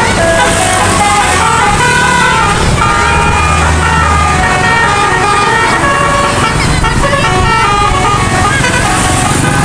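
A bus's Basuri musical 'telolet' air horn playing a quick melody of short notes stepping up and down, over the low running of the bus's engine.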